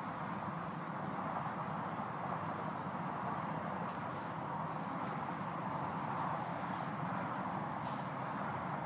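Steady, even rushing outdoor noise with no distinct events and no thunderclap, with a thin high steady tone above it.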